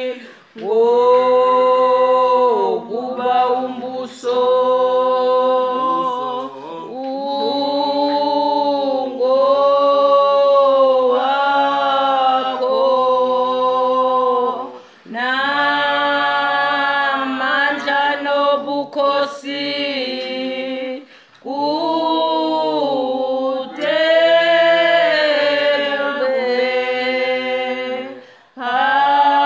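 Church congregation of women singing a hymn a cappella, in long held phrases with short breaks between them.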